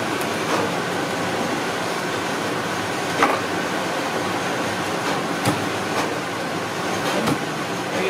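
Steady, even machine-like workshop noise, with a few light taps and clicks from handling a wound electric motor stator and its stiff insulation paper. The loudest tap comes about three seconds in.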